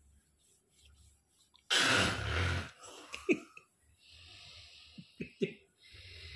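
A person's loud snore: one harsh, noisy burst about a second long, followed by a softer breathy hiss and a few small clicks.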